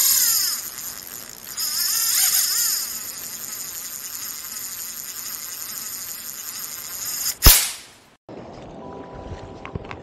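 Electronic intro sound effects: a high buzzing whoosh that swells twice, ending in a sharp loud swoosh-hit about seven and a half seconds in. After a brief drop-out, a quieter steady hum with a few faint clicks sets in near the end.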